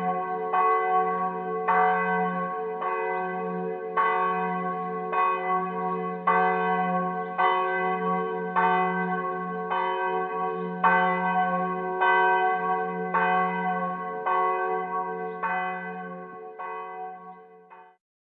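A church bell struck about once a second, each stroke ringing on under the next with a steady low hum. The strokes fade away over the last few seconds and stop.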